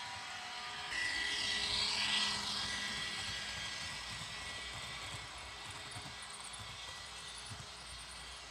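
Model passenger train running past on the layout's track: a whirring rush of motor and wheels that comes in suddenly about a second in, is loudest just after, then slowly fades as the train moves away.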